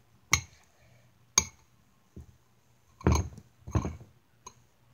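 A metal spoon stirring slime in a bowl, clinking against the bowl: two sharp clinks in the first second and a half, then two longer, duller knocks a little after three seconds in, and a faint tick near the end.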